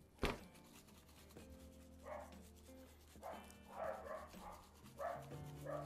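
Dogs barking, several short barks scattered over the last four seconds, wanting the meat. Near the start a sharp thump, the loudest sound, as the rubbed pork shoulder is set back down on the wooden cutting board.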